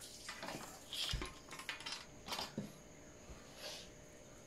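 Handling noise of a laptop charger cable and its small DC plug on a hard tabletop: scattered light clicks and rustles, with a dull knock about a second in.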